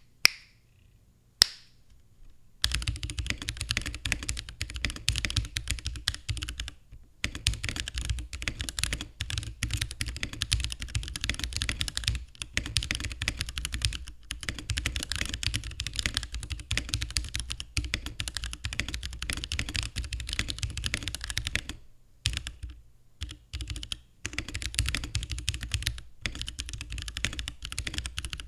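Fast typing on a mechanical keyboard with Holy Panda tactile switches (Halo True stems in Invyr Panda housings), in an acrylic case with a carbon fiber plate: a dense run of key clacks with a few short pauses. It opens with two sharp single clicks about a second apart before the typing starts.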